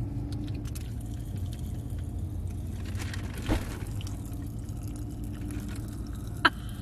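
Pop Rocks candy poured from pouches into open mouths, crackling and fizzing as a scatter of faint pops over the low hum of a car cabin. A single sharp click comes near the end.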